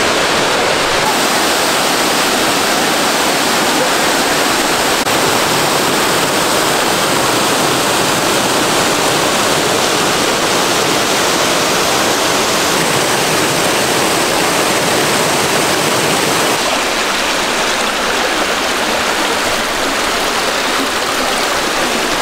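Waterfall and river water rushing, a loud, steady, even sound of falling and flowing water. It turns a little thinner about three-quarters of the way through.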